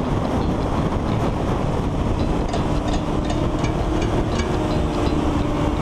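Honda CBR sport bike engine running at speed under heavy wind noise on the onboard camera microphone, its note steady.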